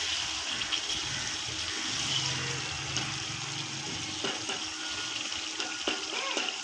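Chicken pieces frying in ghee in a wok: a steady sizzle, with a few light knocks of the spatula against the pan.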